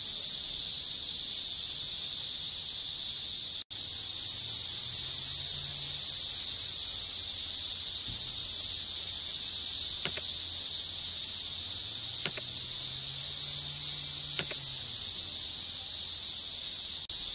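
Cicadas singing in a steady, high-pitched chorus that drops out for an instant about four seconds in.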